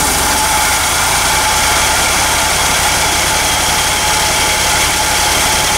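The 1964 GMC pickup's 305 V6 engine running steadily at an even idle, moments after firing up following years of sitting.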